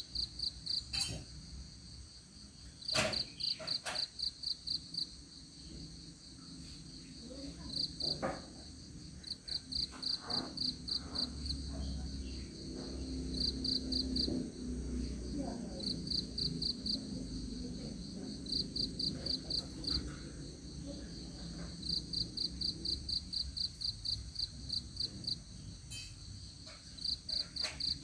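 Crickets chirping: short trains of rapid, high-pitched pulses, repeating every second or two. A few sharp clicks come in the first seconds, and a low rumble swells in the middle.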